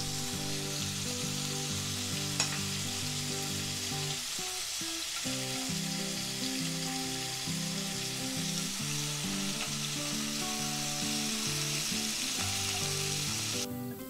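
Semi-dried squid pieces sizzling in hot oil in a nonstick frying pan, stirred now and then with chopsticks, over soft background music. The sizzle cuts off suddenly near the end, leaving only the music.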